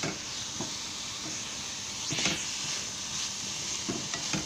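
Sliced onions and spice powders sizzling in oil in a kadai as they are sautéed, with a few spatula scrapes as they are stirred.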